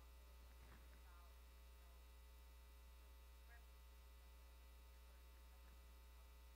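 Near silence: a steady low electrical mains hum, with a very faint, distant voice barely audible in places.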